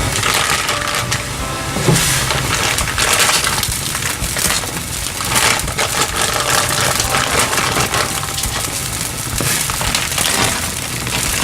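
Close-miked eating of Korean ramyun: irregular bursts of slurping and chewing, with faint background music under them.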